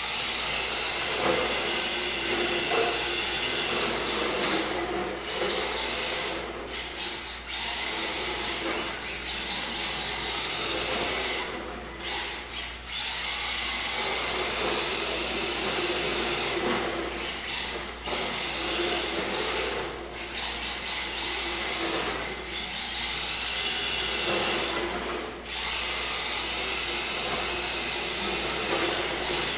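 MST RMX 2.0 RC drift car's electric motor whining as it is driven around a concrete floor. The whine rises and falls with the throttle and drops out briefly every few seconds.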